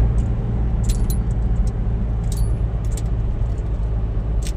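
Toyota Avanza running, a steady low engine and road drone heard from the car, with light sharp clicks now and then; its automatic transmission's main drive gear has just been replaced to cure a grinding noise.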